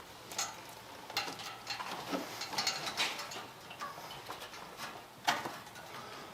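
Scattered light metal clinks, taps and knocks of parts and tools being handled, a sharper knock about five seconds in.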